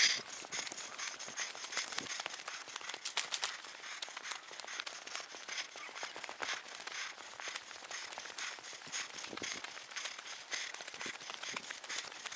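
Footsteps crunching on a dry dirt forest trail, a quick, irregular run of steps.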